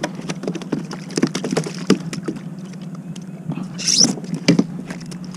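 Irregular clicks and taps of fishing gear being handled aboard a plastic kayak while a small rockfish is brought in, over a steady low hum, with a short hiss about four seconds in.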